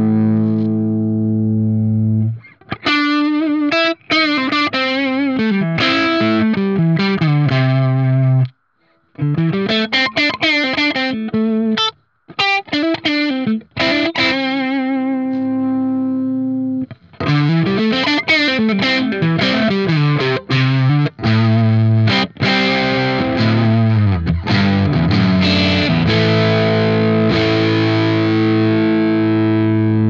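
Electric guitar played through a TC Electronic Vintage Distortion, a RAT-circuit distortion pedal, with its boost switched off for a low-to-mid gain overdrive tone. A held chord gives way to quick single-note riffs with a couple of brief stops, and it ends on a long ringing chord.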